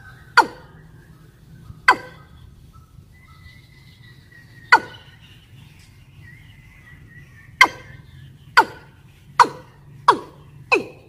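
Female watercock (ayam-ayaman) calling: short, sharp single notes, each dropping quickly in pitch, eight of them, widely spaced at first and quickening to about one a second near the end. It is a female's breeding call, the kind that draws males and is played as a hunting lure.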